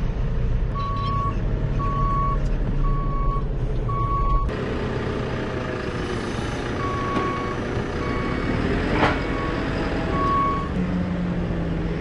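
JCB Super Agri 532-70 telehandler backing up: its reversing alarm gives a single high beep about once a second over the running engine. There is a short knock about nine seconds in.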